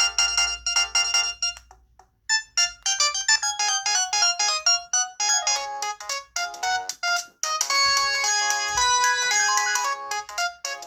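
Built-in ringtones of an LG A180 mobile phone playing one after another: a tune of quick electronic notes stops about two seconds in, and after a short pause another starts. There is a brief break about seven and a half seconds in before a fuller tune begins.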